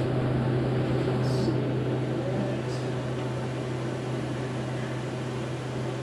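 A steady low mechanical hum with an even hiss, with a faint light click about a second in and another a little before the middle.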